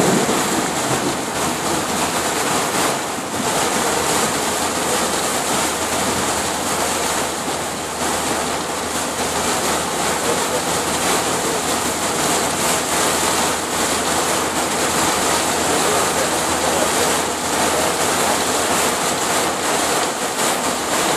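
Heavy rain pelting a van's roof and windscreen, heard from inside the cabin as a loud, steady rushing noise.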